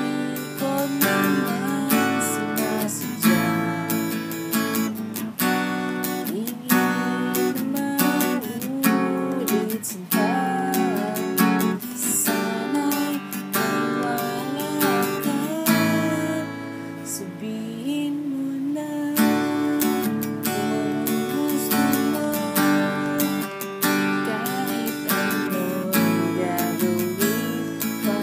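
Acoustic guitar strummed in a steady rhythm, the chords changing every second or two.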